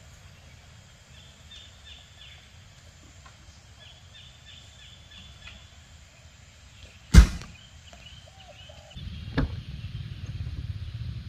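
An SUV's top-hinged rear tailgate is swung down and slammed shut once, about seven seconds in, a single sharp bang that is the loudest sound. Birds chirp faintly in the first half, and a lighter click comes about two seconds after the slam.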